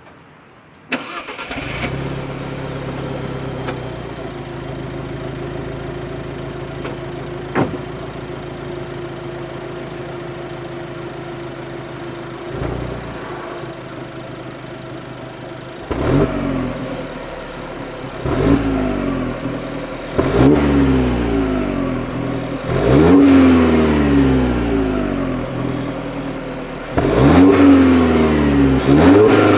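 Alfa Romeo Giulietta Quadrifoglio Verde's 1750 turbocharged four-cylinder on its stock exhaust starting about a second in and settling to a steady idle. In the second half it is revved five times while standing, each rev rising sharply and falling back to idle.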